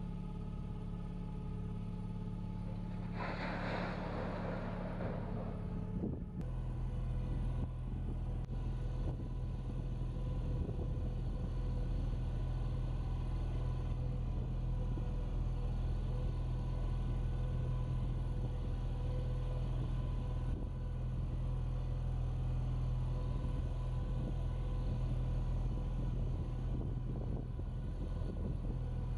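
Boat engine running steadily at cruising speed, a low drone of constant pitch. About three seconds in, a hiss lasts a couple of seconds, and the engine note shifts slightly at about six seconds.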